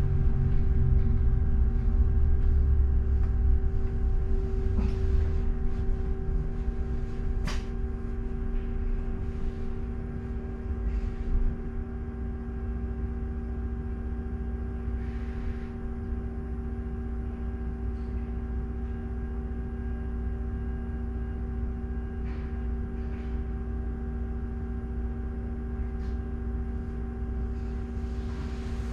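Inside a double-decker bus: a low engine and road rumble that fades over the first dozen seconds, leaving a steady hum of several held tones, with a few faint clicks and knocks.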